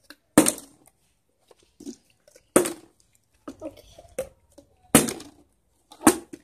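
Plastic water bottles being flipped and knocking down onto a table: four sharp thuds a second or two apart, with lighter knocks between them.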